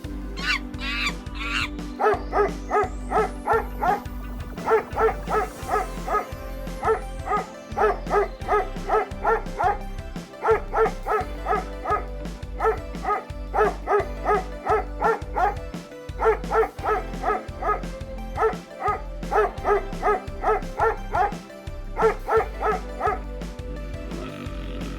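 A dog barking and yapping in quick runs of short barks, over background music with a steady beat.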